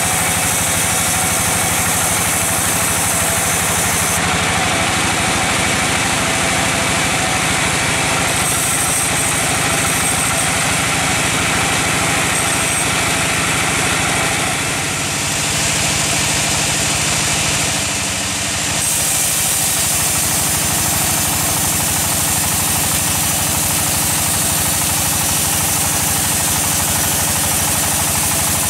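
Band sawmill running steadily, its blade sawing lengthwise through a large log: a loud, even machine hum with a broad hiss of cutting.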